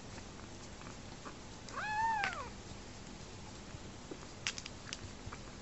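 A young kitten gives a single meow about two seconds in, its pitch rising then falling. A quick cluster of sharp clicks follows near the end.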